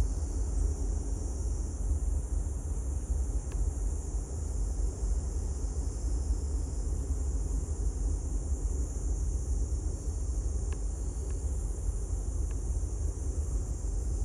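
Seaside outdoor ambience: a steady low wind rumble on the microphone under a constant high drone of insects, with a few faint clicks about three seconds in and again near the end.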